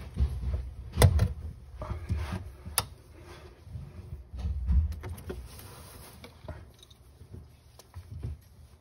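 Handling noise of a screw being started by hand screwdriver into a metal one-hole conduit strap under the cabinet: irregular knocks and clatter, with sharp clicks about a second in and again near three seconds.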